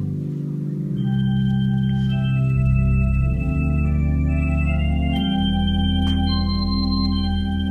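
Church organ playing slow, sustained chords over a deep bass line, the harmony shifting every second or two.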